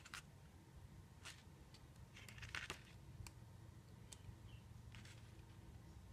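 Faint rustling of glossy booklet pages being turned by hand: a few short swishes, the biggest about two and a half seconds in.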